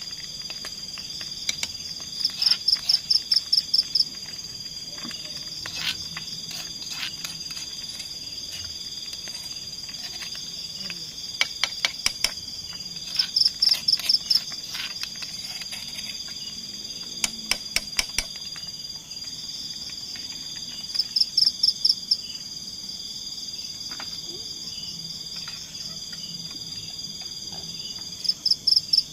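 A night insect chorus: a steady high-pitched trill under loud runs of rapid chirps, about six to nine in a burst, repeating every few seconds. A few faint clicks are scattered through it.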